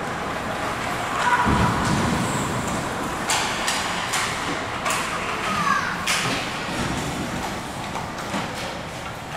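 Ice hockey play: a dull thud about a second and a half in, then several sharp clacks of sticks and puck, with skates scraping on the ice.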